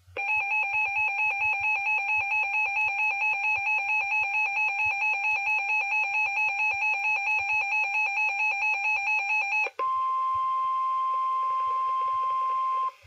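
Electronic alert tones from a NOAA Weather Radio broadcast: a buzzy warbling tone that wobbles about four times a second for about ten seconds, then cuts to a steady pure tone of about 1050 Hz, the Weather Radio warning alarm tone that announces a new warning, for about three seconds.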